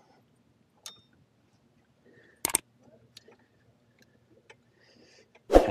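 A few light ticks and one sharp double click about two and a half seconds in, from hands working a new oil filter onto its mount on a Harley-Davidson engine while hand-tightening it.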